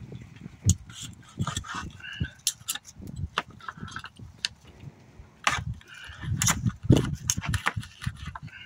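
Knife blade and fork clicking and scraping against a plastic cutting board while grilled beef is sliced, with many sharp, irregular clicks.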